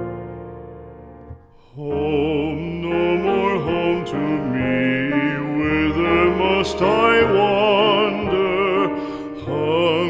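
Background song: a piano chord fades away, then from about two seconds in a singer with a wide vibrato comes in over piano accompaniment, a slow ballad.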